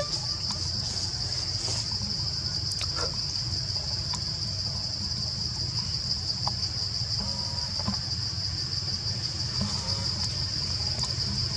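Steady, high-pitched drone of insects in the tree canopy, with a low steady rumble underneath. A few faint short calls come through about two-thirds of the way in.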